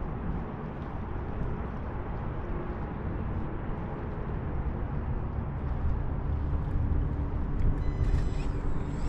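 Wind buffeting the microphone: a steady low rumble that grows slightly louder. A thin high whine comes in near the end.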